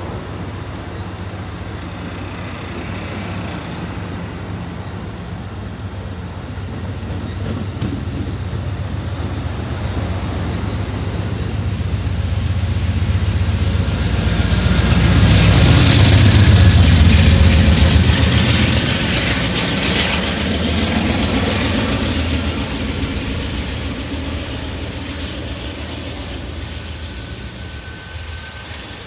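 Amtrak Pacific Surfliner train with a P42DC diesel locomotive pulling out: the engine working under power and the bi-level cars rolling past on the rails, growing louder about halfway through, then fading as the train moves away.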